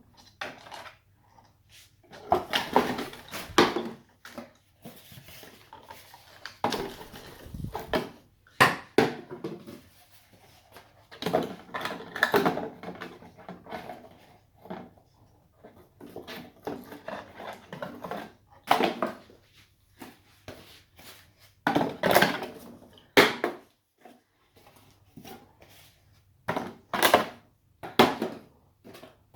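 A parrot playing with a ball: irregular knocks, clatters and scratchy rustles, in clusters of one or two seconds with short pauses between.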